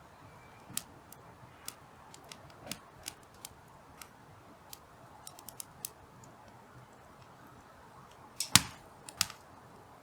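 Burning hardwood firewood crackling, with scattered irregular snaps and a louder cluster of sharp pops near the end.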